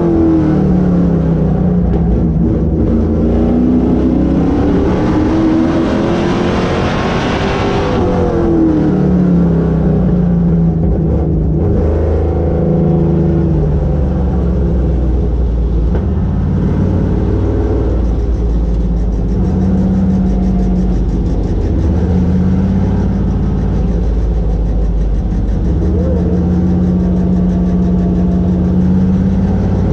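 Vintage modified race car's engine heard from inside the cockpit, rising and falling in pitch with the throttle over the first several seconds, then running steadier with smaller changes.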